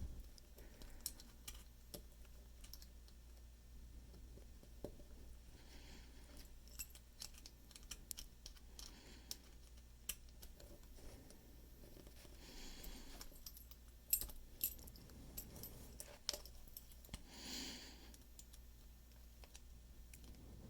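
Faint, scattered small metal clicks and scrapes of a C-clip tool working at the retaining C-clip on an American Lock 1100-series padlock core, with a sharper click about 14 s in and a couple of soft rustles.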